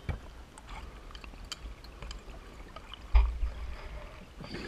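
Underwater scuba breathing: a diver's exhaled bubbles gurgling and trickling, heard through a camera housing. Scattered sharp clicks throughout, and a loud low thump about three seconds in.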